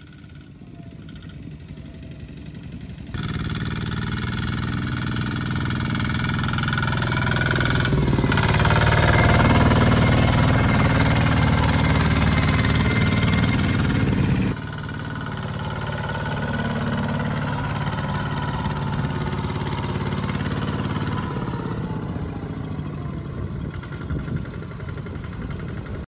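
Two-wheel walking tractors' single-cylinder diesel engines running as they haul loaded trailers through mud. The engine sound jumps up about three seconds in, is loudest in the middle, and drops off abruptly about halfway through.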